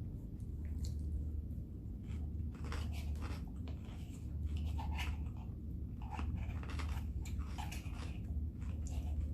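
Close-up chewing and crunching of a mouthful of Caesar salad (crisp lettuce and croutons), with irregular crackles, over a steady low hum.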